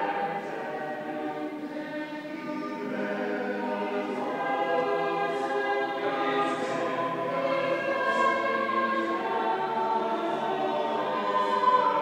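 Church choir singing Evensong, several voices together holding sustained notes that change every second or two.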